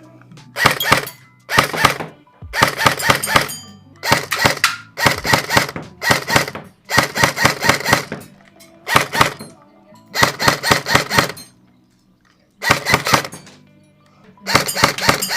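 Airsoft MP5 submachine gun firing about eleven short rapid bursts, each a quick string of sharp shots, with brief pauses between them.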